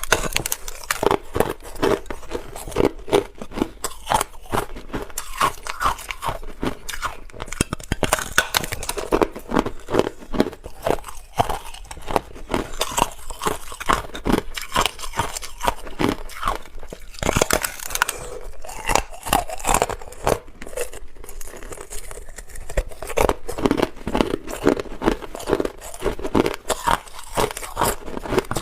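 Hard clear ice being bitten and chewed close to the microphone: continuous sharp crunching and cracking, many snaps a second.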